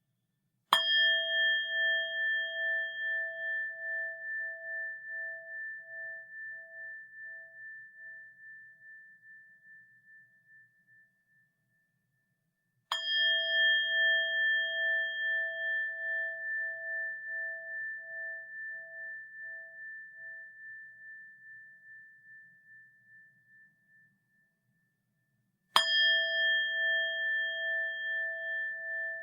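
Buddhist rin bowl bell struck three times, about twelve seconds apart. Each strike rings on with a slow wavering pulse in its loudness and fades away over about ten seconds. The third is still ringing near the end.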